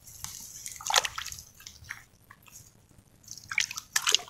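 Hands digging out wet, muddy soil around an eel burrow. There are short scrapes of earth and mud being pulled away about a second in and again near the end, with little sound between.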